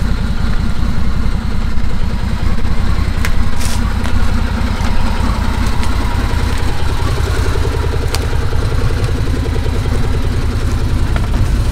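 Can-Am Defender Max HD10 UTV's Rotax V-twin engine running steadily at idle, with a few faint clicks over it.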